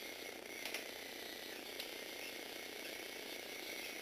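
Small electric motors and plastic gear trains of a motorized Lego Technic 8043 excavator whirring steadily as the arm moves, with two short clicks, one under a second in and one about two seconds in.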